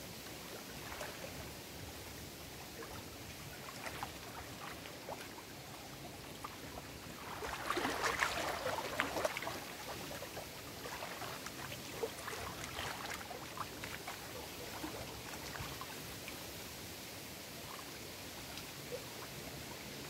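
Small lake waves lapping and splashing against shoreline rocks among reeds, with a louder burst of splashing about eight seconds in.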